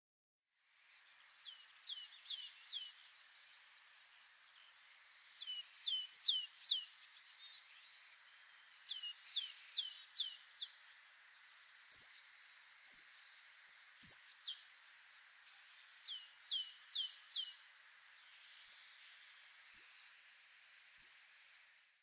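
Willow tit singing: runs of four or five clear, descending whistled notes in quick succession, repeated several times. Between them, and near the end, come single higher descending notes about a second apart, over a faint hiss of background.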